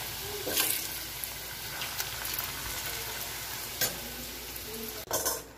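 Potato fingers deep-frying in hot oil in a pan, a steady sizzle, with a few sharp clicks from stirring.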